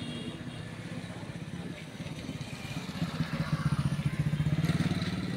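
A motorcycle engine running close by, its fast pulsing note growing louder from about three seconds in as it passes, loudest near the end.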